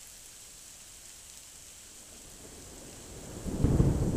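Heavy rain falling steadily, then a roll of thunder builds from about two and a half seconds in and grows loud near the end.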